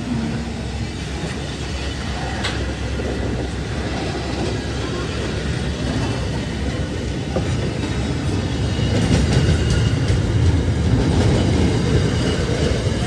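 Freight train rolling past: a steady rumble of wagon wheels on the rails that grows louder in the last few seconds, with a single sharp click a couple of seconds in.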